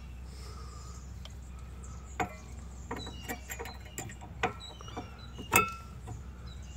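Scattered light metallic clicks and clinks from a brake pad and its hardware being handled while the pad ends get a light smear of grease. The loudest click, a little over five seconds in, rings briefly.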